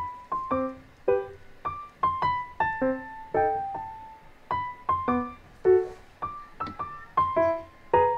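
Background music: a light piano melody of single struck notes, about two a second, each fading away.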